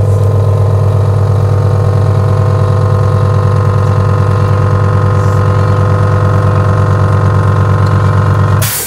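Electric machine, likely a pump or motor of a repair bench, running with a loud, steady hum; it cuts off near the end.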